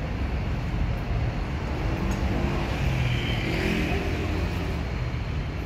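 Road traffic on a busy city street: vehicles running and passing with a steady low rumble, and a passing hiss in the middle.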